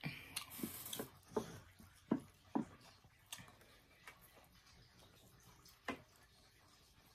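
Close-up chewing with wet lip smacks over a mouthful of sauce-coated chicken nugget: a quick run of smacks in the first three seconds or so, then a few scattered ones.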